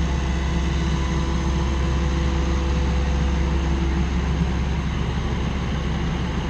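Diesel engine of heavy equipment running steadily at an even speed, a low drone with a few steady tones above it.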